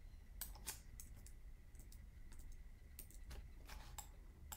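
Faint, irregular clicks of a computer mouse and keyboard, a dozen or so spread unevenly.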